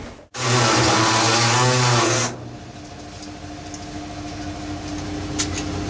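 Pneumatic air saw cutting through the steel roof pillar of a 1932 Ford five-window coupe, a loud, steady buzz. About two seconds in it drops to a quieter steady hum.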